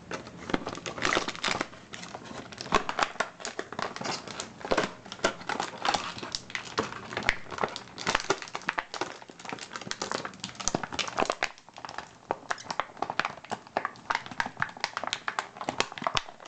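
Plastic toy packaging crinkling and rustling with dense, irregular crackles as a doll is worked free of it by hand.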